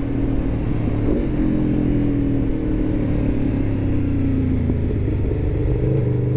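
2019 Aprilia RSV4 1100 Factory's V4 engine with a titanium Akrapovic exhaust, heard from the rider's seat as the bike slows for a turn. The revs fall steadily, then rise again near the end as it picks up speed, with wind rushing over the microphone.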